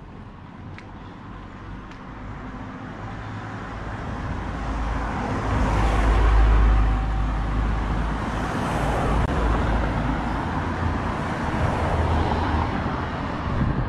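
Road traffic: car engine and tyre noise grows steadily louder, is loudest about six seconds in, then stays at a steady rumble.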